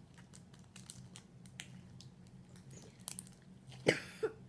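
Clear slime with sprinkles mixed in being squeezed and kneaded by hand: a run of small wet clicks and crackles, with one louder pop near the end.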